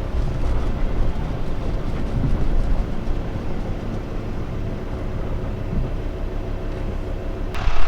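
Vehicle engine and road noise heard from inside the cab while driving slowly, a steady low drone. It gets suddenly much louder just before the end.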